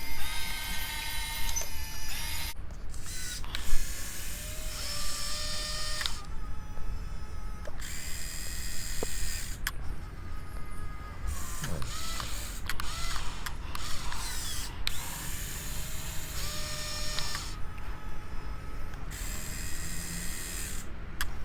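Top Race RC excavator's small geared electric motors whining in short runs that start and stop every few seconds, the pitch gliding as the arm, bucket and tracks are driven.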